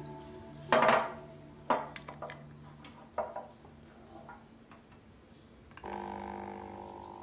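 Kitchen handling sounds as a glass bottle and drinking glass are worked on a countertop: a loud knock about a second in, then a few sharper knocks and small clinks. Near the end a held chord of background music comes in.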